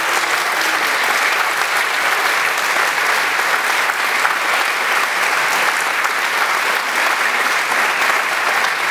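Audience applauding steadily: dense, even clapping with no let-up.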